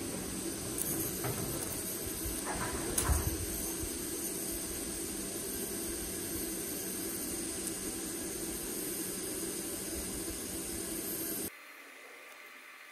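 TIG welding arc on steel exhaust pipe: a steady hiss with a low hum, a few faint clicks in the first three seconds, cutting off abruptly near the end.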